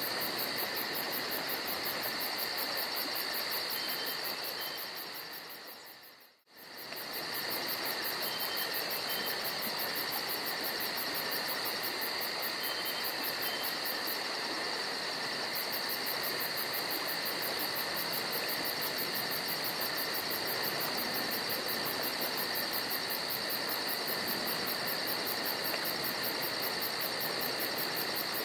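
Steady chorus of crickets and other insects, a high continuous trilling over an even hiss. The sound fades out about six seconds in and comes back a moment later.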